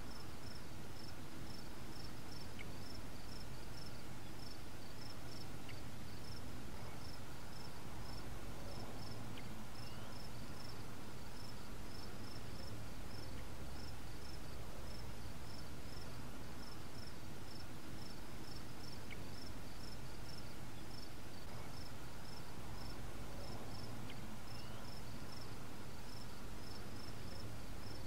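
Crickets chirping steadily, a quick high pulse about three times a second, over a low steady rumble.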